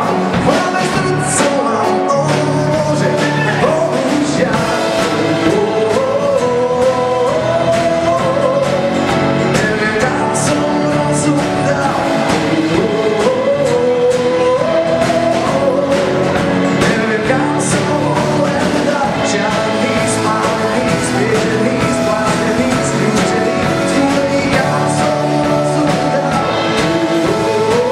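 A live pop-rock song: a man singing over an acoustic guitar and a drum kit.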